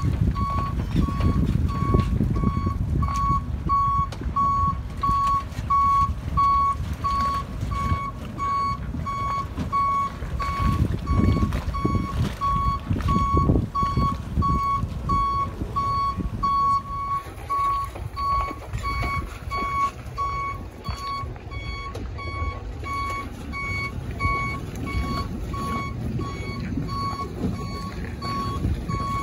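A truck's reversing alarm beeping steadily and evenly, one repeated tone, over the low running of its engine as it backs a boat trailer down a launch ramp into the water.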